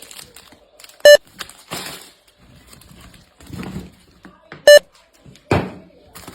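Two short, loud, high-pitched beeps about three and a half seconds apart, with softer rustling noises between them.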